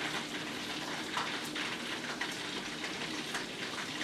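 Hot deep-frying oil sizzling steadily, a dense patter of small crackling pops.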